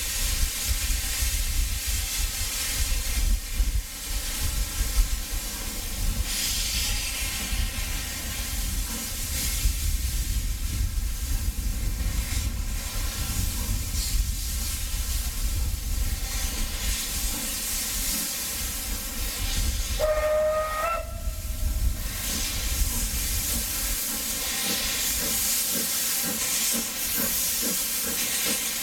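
Isle of Man Railway Beyer Peacock 2-4-0 tank engine hissing steam steadily. About twenty seconds in it gives one short whistle blast of about a second.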